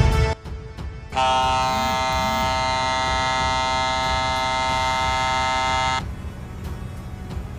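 A ship's horn sounding one long, steady blast of about five seconds, starting about a second in and cutting off sharply. A low rumble runs underneath.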